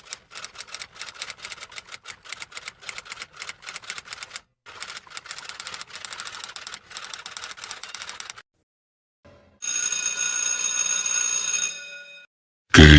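Rapid, irregular mechanical clicking, several clicks a second with a short break midway, for about eight seconds. Then a steady ringing tone for about two seconds, and a loud sudden sound starts just before the end.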